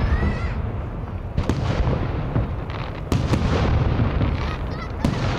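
Fireworks salute shells bursting overhead: a series of sharp bangs, two of them close together about three seconds in, over a continuous low rumble of the display.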